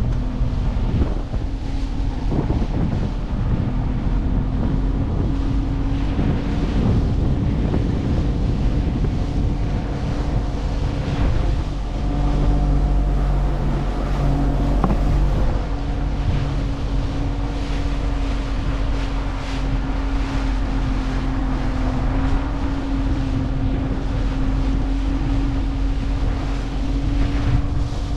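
Small boat's outboard motor running steadily under way, its hum shifting slightly about halfway through, with wind buffeting the microphone and water rushing past the hull.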